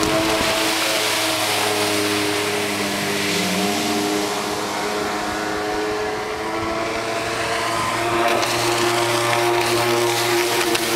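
Sea-Doo personal watercraft running at speed, a steady engine drone with a rushing hiss over it. It fades a little about midway as the craft swings away, then grows louder near the end as it comes back close.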